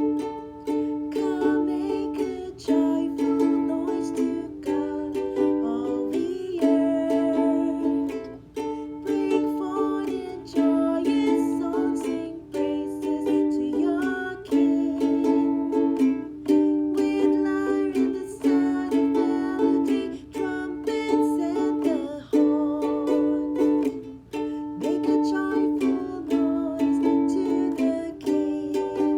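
Instrumental music from a solo plucked string instrument: strummed chords and picked notes in a steady rhythm, without singing.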